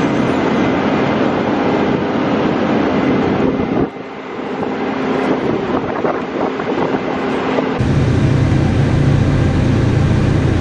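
Tile plow's diesel engine running under load as the plow pulls plastic drain tile into the soil. About eight seconds in, the sound changes to the engine heard from inside the operator's cab, a steady low drone.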